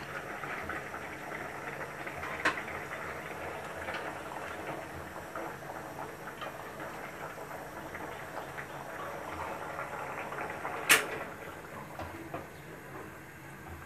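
Ilish fish curry bubbling at a boil in a steel pot, a steady fizzing crackle of bursting bubbles. A spatula knocks against the pot once, sharply, near the end, with a lighter tap about two seconds in.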